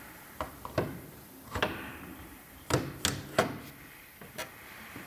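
A string of about eight sharp, irregular clicks and knocks as hard PC parts are handled and fitted together, the loudest three coming close together in the middle.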